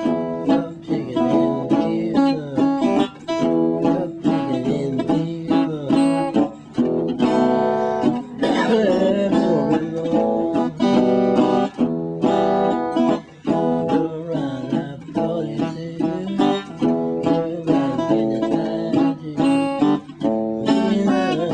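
Country blues played solo on a metal-bodied resonator guitar, fingerpicked in a quick run of plucked notes with some bent notes.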